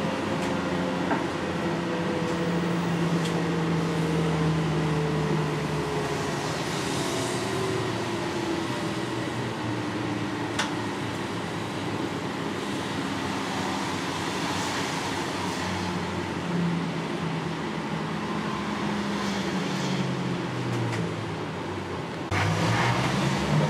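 Cabin sound of an NAW trolleybus in motion: the electric drive's whine slides down in pitch as the bus slows, over steady road and tyre noise. Near the end the sound changes abruptly and the whine rises again as the bus pulls away.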